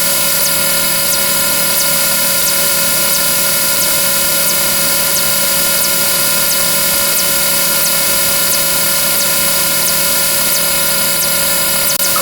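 Dense, steady drone of overlapping sound effects from a counting video, holding many tones at once without change, with faint regular ticks above it.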